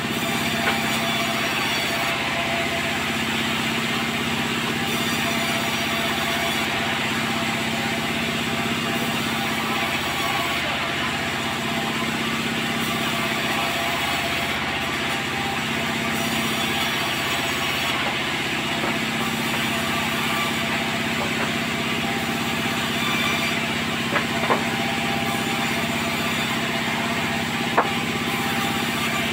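Sawmill machinery running steadily: a continuous engine drone with a constant hum, with a few sharp knocks near the end.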